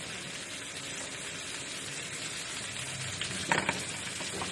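Oil and spices sizzling gently in the bottom of a cooking pot: a steady crackling hiss, with a brief louder sound about three and a half seconds in.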